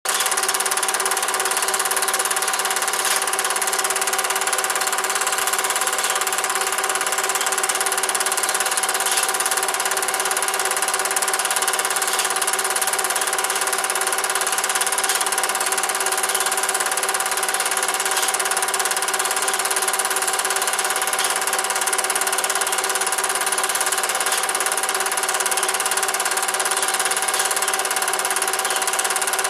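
Cine film projector running: a steady mechanical whir and clatter with a constant hum, and faint clicks about every three seconds.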